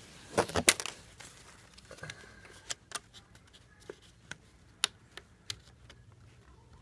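Hard plastic blind parts being handled and clipped: a cluster of loud sharp clicks about half a second in, then single clicks and taps every half second or so.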